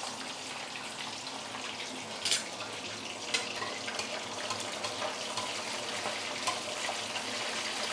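Whole black pomfret deep-frying in hot oil in a stainless steel wok: a steady sizzle with scattered crackles and pops, one louder pop a little over two seconds in.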